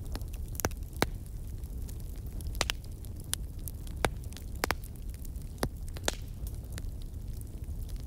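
Crackling wood fire: irregular sharp pops and snaps, about one or two a second, over a low steady rumble.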